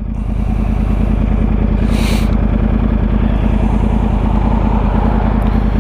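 2013 Yamaha R1's crossplane inline-four idling steadily while stopped, with an even, lumpy low pulse. A short hiss comes about two seconds in.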